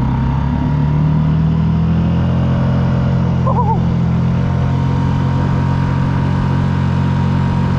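Small outboard motor running steadily at speed, driving a square-stern canoe, its propeller set lower after the mount was cut down to stop it sucking air.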